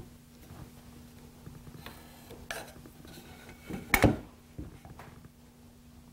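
A metal combination square knocking and clattering as it is handled and set against a wooden board on a workbench, with one sharp loud clatter about four seconds in and a smaller one midway. A faint steady low hum runs underneath.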